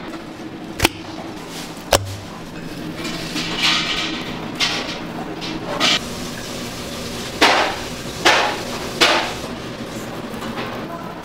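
Kitchen knife cutting raw pork on a cutting board. The blade knocks sharply on the board twice near the start, then makes a run of about six short scraping slicing strokes, over a steady low hum.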